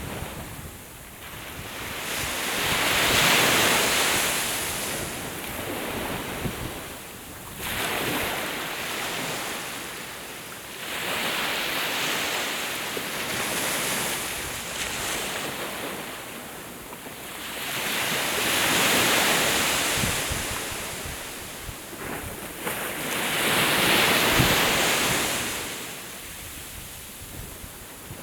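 Sea waves washing onto the shore, swelling and fading about every four to five seconds, with some wind buffeting the microphone.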